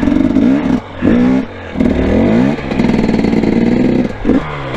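Dirt bike engine being throttled up and down for a slow wheelie: the revs dip and climb quickly about a second in, hold high and steady through the middle, then climb again near the end.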